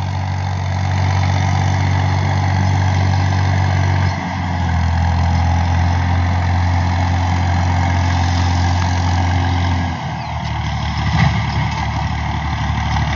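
Diesel farm tractor engine running steadily under load as it pulls a seed planter across a field. Its note shifts about four seconds in and falls away about ten seconds in.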